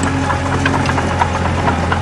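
Komatsu D20A bulldozer's diesel engine running steadily, with scattered light clicks and clanks over it.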